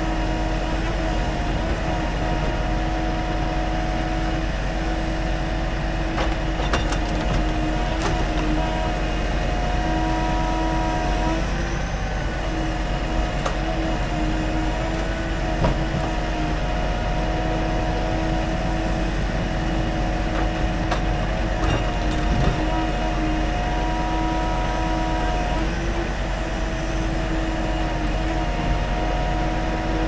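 Timber truck's engine and crane hydraulics running steadily while the truck-mounted loader unloads pine logs; the hydraulic whine shifts up and down in pitch several times as crane functions are worked. A few light knocks come through.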